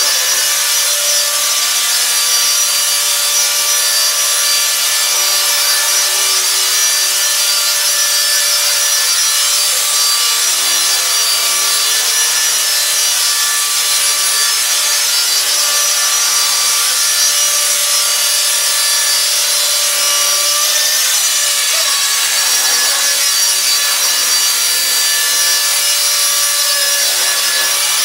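E-flite Blade SR radio-controlled helicopter hovering: its electric motors and spinning rotor blades give a steady high whine, with the pitch wavering briefly about two-thirds of the way through.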